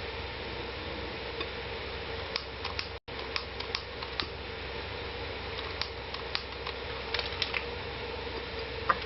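Steady low hum with a faint constant tone, with scattered light clicks and ticks in two loose clusters and one sharper click near the end. The sound cuts out for an instant about three seconds in.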